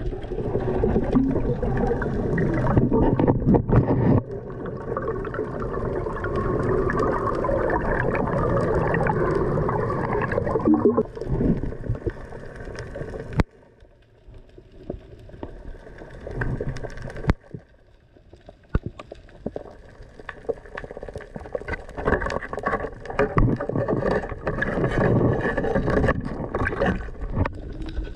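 Muffled water sloshing and gurgling, heard through a camera held underwater. It drops suddenly much quieter about halfway through, then grows louder and choppier again.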